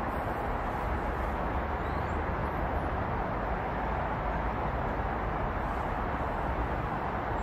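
Steady, even rush of dense city road traffic, the tyre and engine noise of many cars blended together with no single vehicle standing out.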